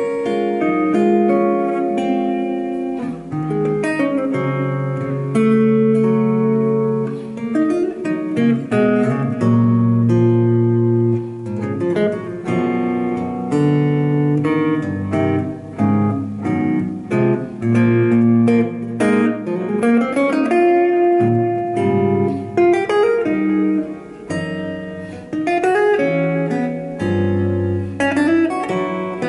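Solo jazz guitar on a Brian Moore i-guitar electric, with chords and melody notes over low sustained bass notes, played at an unhurried pace and left to ring.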